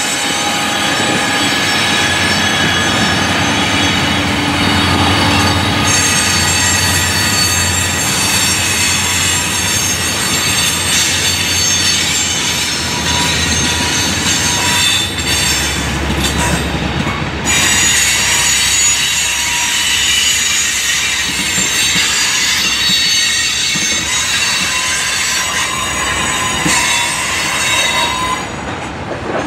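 Freight train of boxcars, covered hoppers and tank cars rolling past, its wheels squealing in several high steady tones over the rumble and clatter of the cars.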